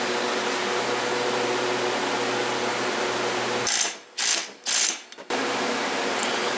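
Socket ratchet clicking in two short runs on the flywheel nut of a Minarelli two-stroke scooter engine, about four seconds in, as the flywheel is fastened. A steady hum runs under it.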